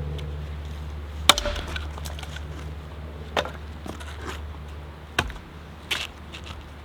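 Firewood being chopped: four sharp blows on wood, roughly two seconds apart, over a steady low hum.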